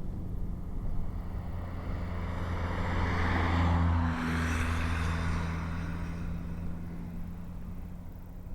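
Car engine drone and road noise of a car driving on a winding mountain road. A swell of tyre and engine noise rises to a peak about four seconds in and then fades.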